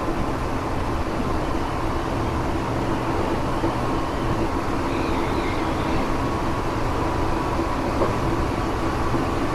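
Running sound heard from inside a Tokyo Metro 7000 series electric train car with armature chopper control: a steady rumble of wheels on rail with a faint steady whine.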